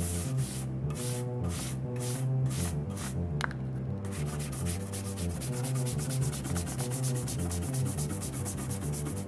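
Rhythmic rubbing strokes, about two a second, turning to a fast, even rubbing about four seconds in, over a Moog Taurus 3 bass synthesizer playing a stepping bass line.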